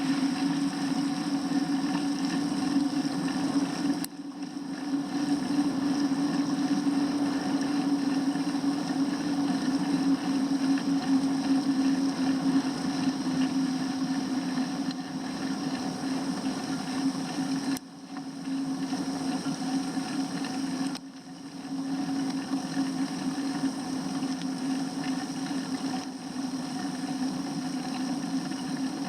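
Steady low hum with a rushing noise over it, the running sound of a bicycle ride on winter roads. It drops away briefly a few seconds in and twice more past the middle.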